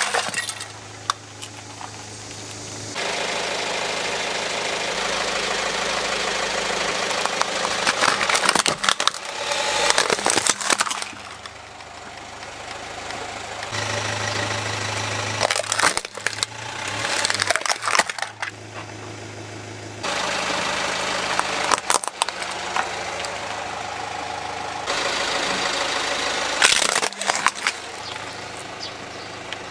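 Plastic toy vehicles cracking and snapping as a car tyre rolls over and crushes them, several separate crushes, over a car engine idling.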